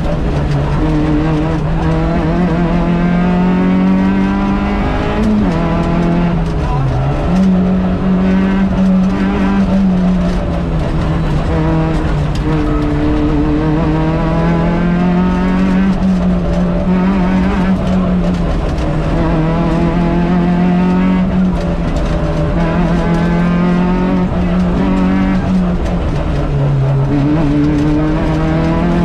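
Rally car engine heard from inside the cabin at full stage pace, its note climbing under acceleration and dropping back at gear changes and braking, over loud road and tyre noise.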